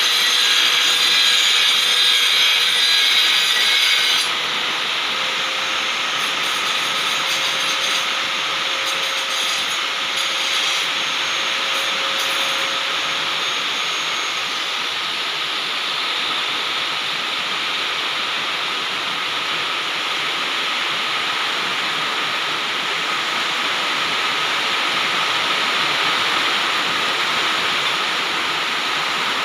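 Heavy rain pouring down, a steady dense hiss that drops a little in level about four seconds in.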